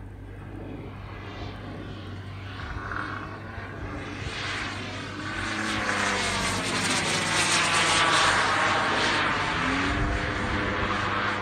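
Radio-controlled Corvus Racer model plane, powered by both a JetCat 80 turbine and a gas-engine propeller, making a pass in flight. Its engine noise grows louder from about four seconds in and is loudest around the eighth second.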